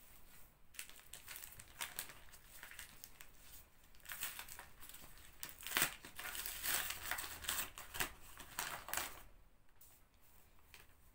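Hands kneading çörek dough: a fast, irregular run of handling sounds, busiest in the middle and tailing off near the end.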